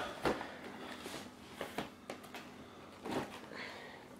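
Faint handling noises: a few light clicks and soft rustles.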